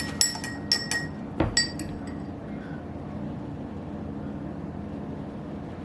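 A metal spoon clinking against a cup of tea: a quick run of ringing clinks in the first two seconds with one heavier knock among them, then only a low steady hum.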